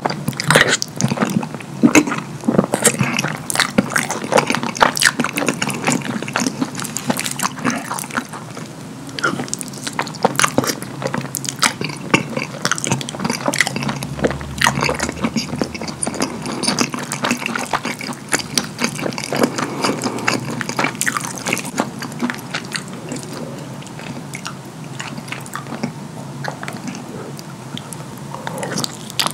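Wet chewing and lip smacking of a mouthful of soft lasagna in cheese sauce, a steady run of quick sticky clicks and squelches.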